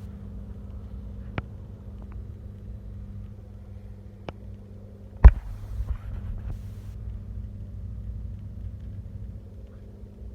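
Steady low rumble with a faint hum, broken by a few sharp knocks or clicks, the loudest about five seconds in.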